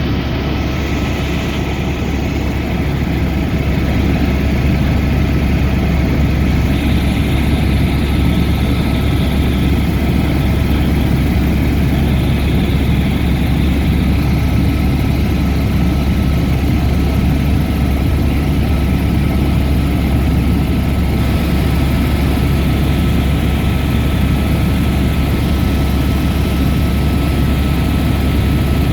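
Helicopter in flight: steady, loud rotor and engine noise with a deep drone underneath, getting slightly louder about four seconds in.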